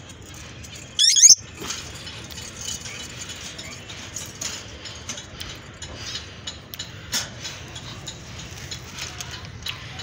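Peach-faced lovebirds calling in an aviary: one loud, shrill screech about a second in, then a scatter of short, squeaky chirps and clicks.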